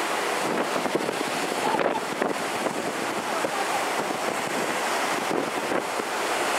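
Steady rush of churning wash along the hull of a moving car ferry, mixed with wind buffeting the microphone.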